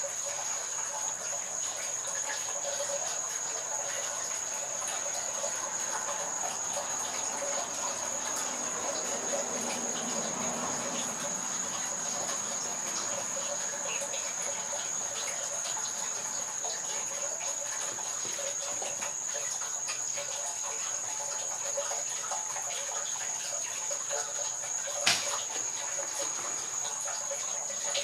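Steady high-pitched trilling of insects, one unbroken tone that never lets up, over a softer background wash. Near the end a single sharp click.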